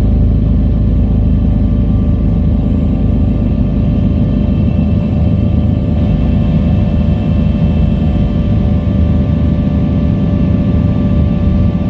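Helicopter in flight on its landing approach: the rotor gives a loud, steady deep rumble with a fast flutter, and the turbine and gearbox add several steady whining tones above it, unchanging throughout.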